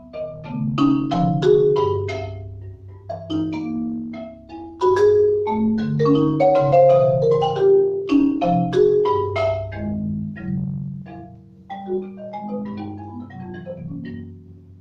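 Concert marimba played solo with mallets: a dense run of struck notes across the low and middle range, getting loud about five seconds in and softer after about ten seconds.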